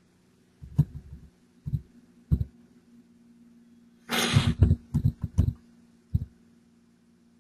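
Scattered keystrokes on a computer keyboard, heard as low thumps: single taps about a second apart, then a quick cluster about four to five seconds in with a short breathy rush of noise, then one last tap. A steady low hum runs underneath.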